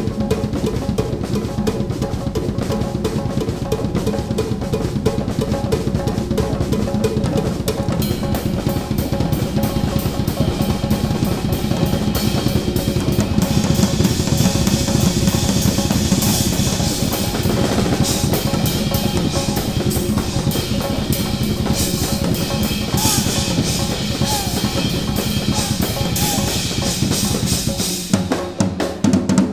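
Drum kit solo in rumba style, with a clave pattern kept by the left foot: fast, dense stick strokes on snare, toms and bass drum. Cymbals come in more strongly from about halfway, and the playing thins out briefly near the end.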